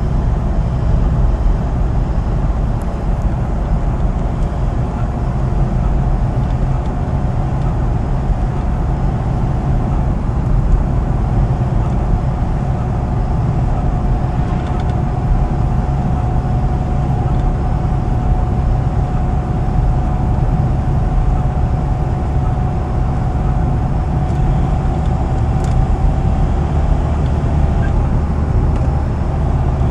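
Citroën C4 engine running steadily at about 2000 rpm with a high, steady squeal over the low engine drone; the squeal's pitch creeps slightly upward.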